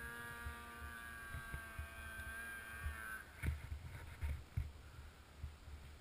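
Polaris Dragon 800 snowmobile's two-stroke engine running steadily at low throttle, its tone sinking slightly before fading out about halfway through. Then a few low thumps and rumble.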